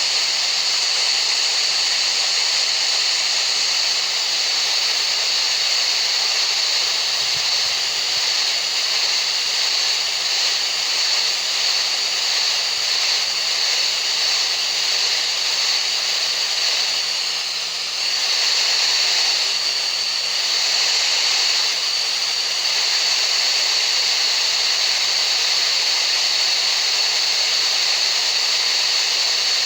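Steady hissing masking noise for tinnitus relief, with a strong high-pitched band running through it. It dips slightly a little past halfway, then grows briefly brighter for a few seconds.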